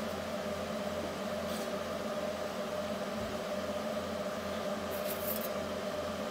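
Steady hum of running shop machinery, with a low part that pulses evenly about three times a second, and a brief rustle about five seconds in.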